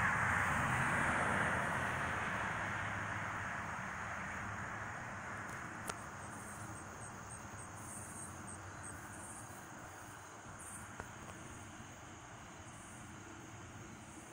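Jet aircraft passing high overhead, its broad rushing noise fading away steadily. In the middle stretch there is faint high insect chirping, and a single click about six seconds in.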